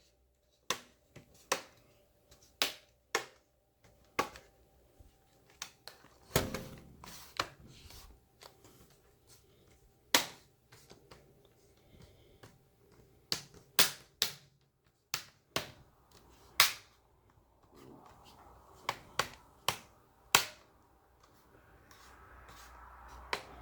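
Sharp plastic clicks and taps, irregularly spaced, a few every couple of seconds, from handling a laptop's plastic casing and snapping its parts into place during reassembly.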